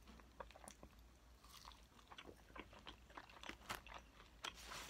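A person chewing a mouthful of bunless double cheeseburger: faint, irregular soft clicks of the mouth, several a second.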